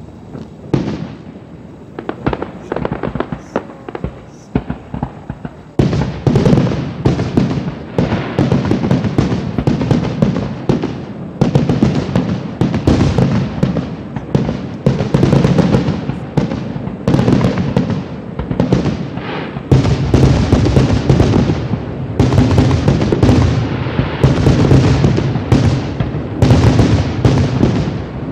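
Aerial fireworks display: a few separate shell bursts and crackles at first, then from about six seconds in a dense, continuous barrage of overlapping booms and crackling.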